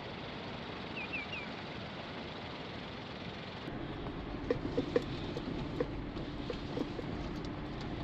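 Car driving slowly on a rough dirt track: steady tyre and wind noise with three quick high chirps about a second in. From about four seconds in it is heard inside the cabin as a steady engine hum with small knocks and rattles from the bumpy surface.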